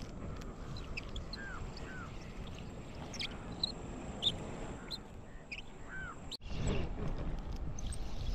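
Birds chirping over a steady low outdoor background, with several short chirps and calls scattered through. About six seconds in the sound cuts out for an instant, then comes back with a louder low rustling noise as the arm moves against the body-worn camera.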